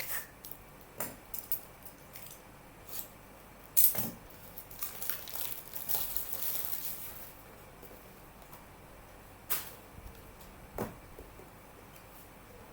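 Trading cards and their packaging being handled: scattered light clicks and taps, a louder knock about four seconds in, then a couple of seconds of soft rustling, and two more taps near the end.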